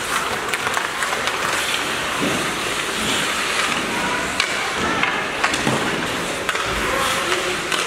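Ice hockey play on a rink: steady noise of skates scraping the ice, with sharp, irregular clacks of sticks and puck scattered throughout.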